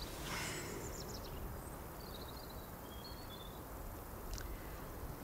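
Quiet outdoor ambience: a steady low rumble, with a few faint, short bird chirps in the middle and a small click near the end.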